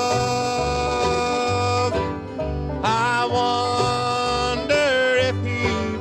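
Bluegrass band playing an instrumental passage. A fiddle holds long notes, sliding up into some of them, over banjo and guitar, with a steady low bass pulse underneath.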